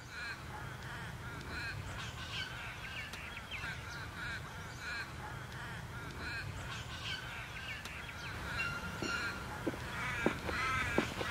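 Birds calling over and over outdoors, several short rising-and-falling calls a second, over a steady low rumble. A few sharp taps come near the end.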